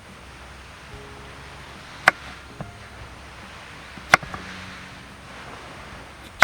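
Two sharp chopping strikes about two seconds apart, each followed by a lighter knock, with another strike right at the end.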